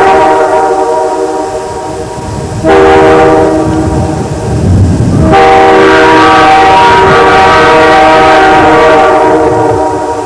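Freight locomotive's air horn sounding a multi-note chord: a blast trailing off at the start, then two long blasts back to back from about two and a half seconds in, over the low rumble of the locomotives.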